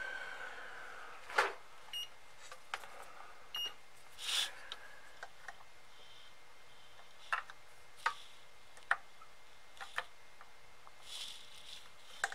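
Multimeter test probes clicking and scraping against solder joints on a power supply circuit board while it is tested for shorts, with a few short high beeps from the meter.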